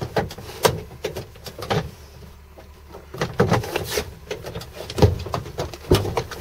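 Irregular knocks and rustles from the camera being handled and moved about the pickup's cab, over a steady low hum. The loudest knock comes about five seconds in.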